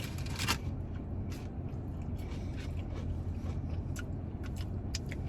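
A person chewing food close to the microphone, with scattered small clicks and scrapes, over a steady low hum.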